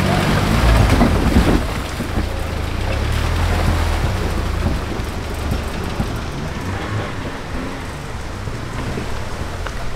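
An off-road 4x4's engine running at low revs, crawling, under a dense steady rush of water noise like rain or splashing; the rush is loudest in the first two seconds.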